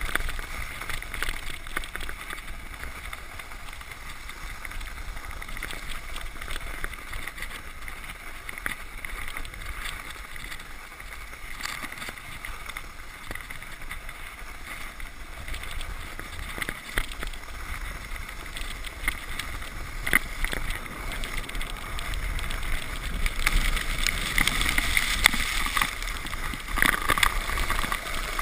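Sled sliding fast down a packed-snow trail: a steady hiss and scrape of the sled on the snow, mixed with wind rushing over the microphone. It grows louder and rougher over the last few seconds as the sled speeds up, with a few sharp knocks from bumps.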